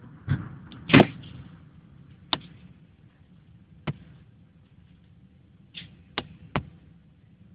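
The tail of a saluting gun's blank shot from HMS Belfast dies away, followed by several separate sharp cracks, the loudest about a second in and the rest fainter and spread out.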